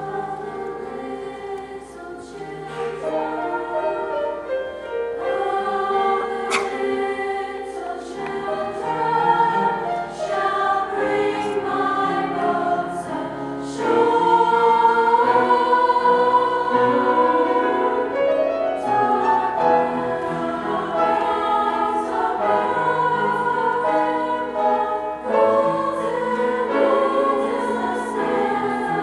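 Choir of teenage girls singing a choral piece in parts, with long held notes, swelling louder about halfway through.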